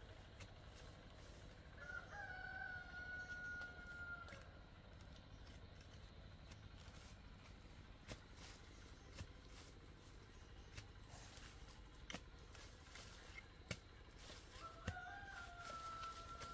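A rooster crowing twice, each a long held call of about two seconds that sags slightly in pitch, the first about two seconds in and the second near the end; a few faint clicks and taps in between.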